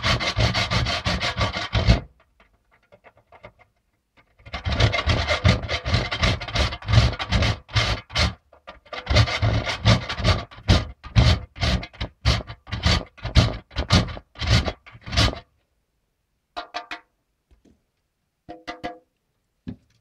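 A hard bar of laundry soap grated by hand on a metal box grater into a plastic bowl: quick rasping strokes, about three a second, in three runs with short pauses, the soap coming off as a fine, dust-like powder. The grating stops a few seconds before the end, followed by a few light taps.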